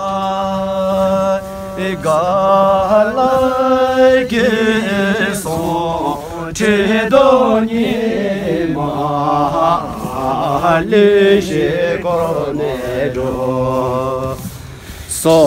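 A single voice chanting a Buddhist prayer in long, slow melodic phrases, holding notes and gliding between them.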